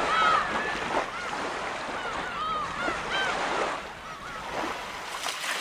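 Surf washing on a beach, with a gull calling several times over the steady wash of the waves.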